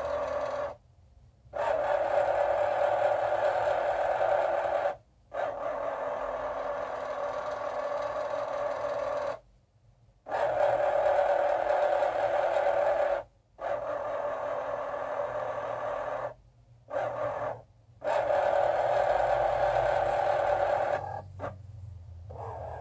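Motors of the Excalibur Phantom Force's under-board piece-moving mechanism whirring in stretches of a few seconds. They stop dead for a moment between stretches and some runs are louder than others.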